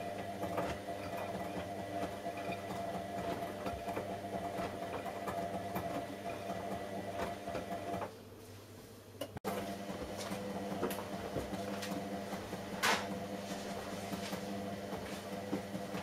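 Whirlpool front-loading washing machine running a wash cycle: a steady motor hum as the drum turns, with light clicking. The hum drops away briefly about eight seconds in, then resumes, and a single knock comes about thirteen seconds in.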